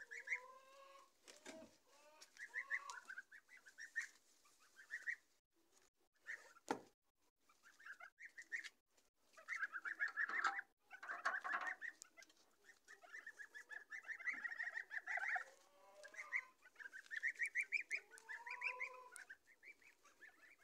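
Half-grown domestic goslings chattering in high-pitched peeps, in short runs with brief pauses. A single thump about seven seconds in.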